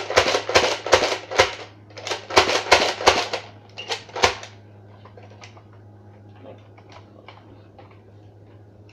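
Toy pump-action shotgun fired rapid-fire with the trigger held down: a quick run of about a dozen sharp shots, two to three a second, stopping about four and a half seconds in.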